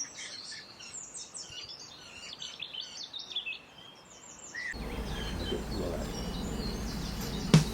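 Small birds singing and chirping. About two-thirds of the way through, the sound switches abruptly to a steady low rumble under fainter chirps, and a single sharp knock comes near the end.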